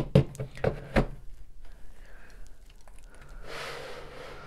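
Plastic LEGO pieces knocking on a hard tabletop as a built floor section is set down and handled, in a quick run of sharp knocks in the first second. A soft rustling noise follows near the end.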